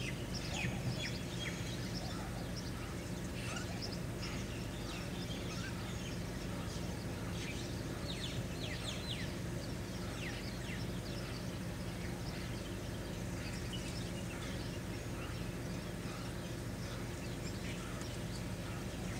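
Small birds chirping with many short, high calls, busiest in the first half, over a steady low background hum.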